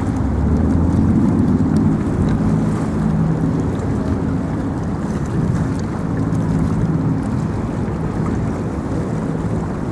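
A low engine drone over steady wind noise on the microphone. The drone is strongest in the first couple of seconds and fades gradually.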